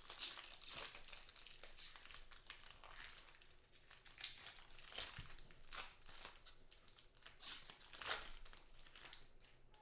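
The foil wrapper of a 2014 Topps Triple Threads football card pack crinkling and being torn open by hand, in irregular crackles and short rips.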